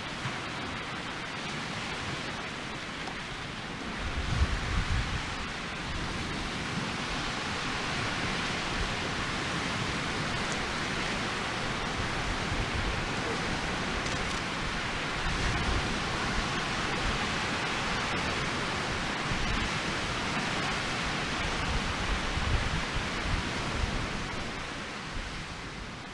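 Split-log Swedish torch fire burning with a steady hiss.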